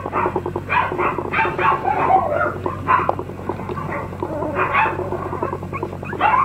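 Toy poodle puppies yipping and whimpering in many short, overlapping high calls.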